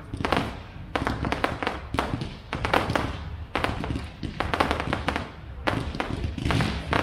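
Aerial fireworks display: shells bursting in quick clusters of sharp bangs and crackles, separated by short gaps.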